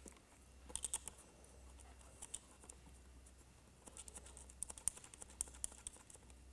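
Faint small clicks and ticks of fingers screwing the antenna leads' small connectors onto the posts of a plastic control module: a short cluster about a second in, then a longer run of quick ticks from about four to six seconds in. A faint steady low hum lies underneath.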